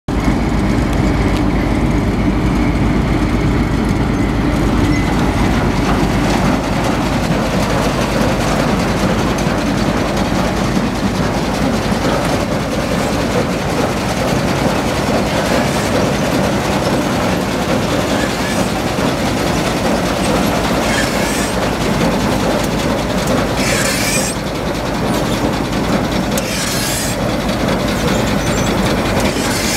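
Combine running with its 2014 New Holland grain header engaged: a loud, steady mechanical clatter from the header's drives, reel and auger turning. A few short hisses come in near the end.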